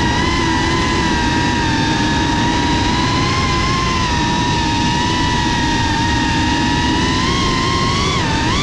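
GEPRC FPV quadcopter's brushless motors and propellers whining steadily, heard from the onboard GoPro over wind rumble, with a brief rise and fall in pitch near the end as the throttle changes.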